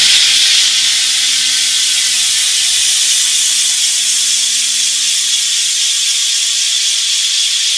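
Bicycle rear hub freewheel buzzing in a fast, steady ratchet as the rear wheel coasts, with crushed cans fitted in the rear wheel to make it sound louder. It starts suddenly and holds steady, easing off only slightly.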